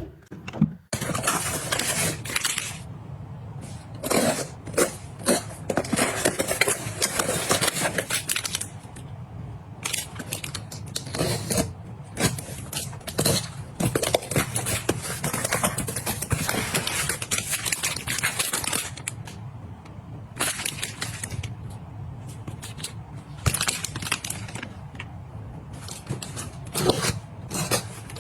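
Close-miked handling sounds: objects being picked up, set down and slid about, with repeated clicks, knocks, scrapes and rustling, the sounds of restocking and organizing.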